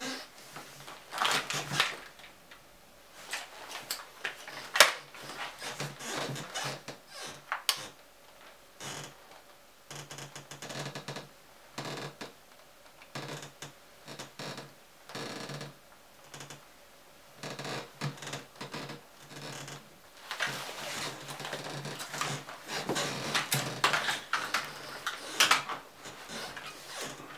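Handling noise from an airsoft rifle and tactical vest with a PVC camera mount: irregular clicks, knocks and rustling as the rifle is raised, shouldered and moved, over a faint steady hum.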